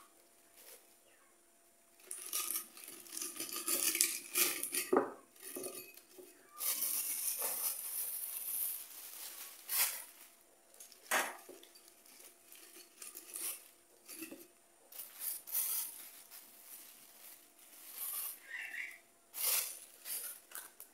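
Dried bay leaves being pushed by hand into a glass jar: crisp rustling of the leaves and a plastic bag, with scattered light clinks and taps against the glass.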